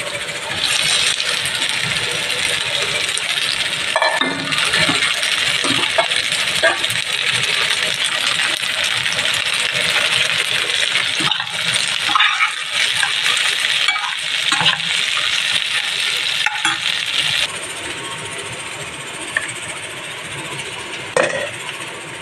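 Cut okra sizzling in a steel pan while a spatula stirs it, clinking and scraping against the metal. The sizzle drops away near the end.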